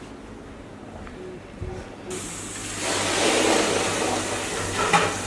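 Tap water starts running onto a hot pressure cooker about two seconds in, a steady hissing spray that grows louder: the cooker is being cooled under the tap so the pressure inside drops quickly. A couple of sharp knocks near the end.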